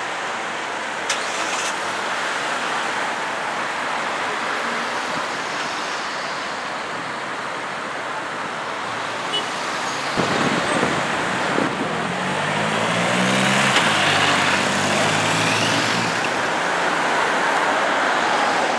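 Steady city street traffic noise. It grows louder in the second half, when a vehicle with a low engine hum passes.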